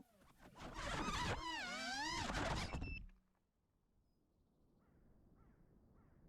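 FPV quadcopter motors and propellers whining, the pitch dipping and rising with the throttle, then cutting off suddenly about three seconds in. A bird then calls faintly and repeatedly, about twice a second.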